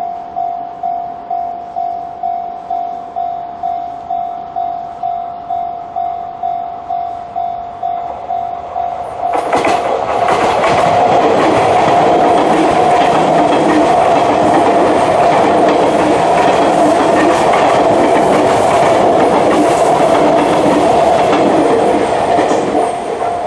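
Japanese level-crossing electronic alarm bell (Chichibu-type tone) ringing at about two strokes a second. About nine seconds in, a Sotetsu Line train passes through the crossing, its running noise and wheel clatter covering the bell until near the end, when the bell is heard again on its own.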